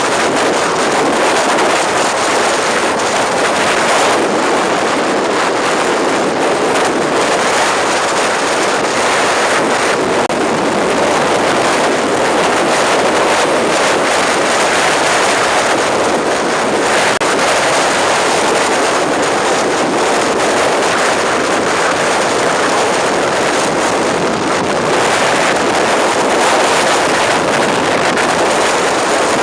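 Storm-force wind, a loud, steady rush of noise with no letup.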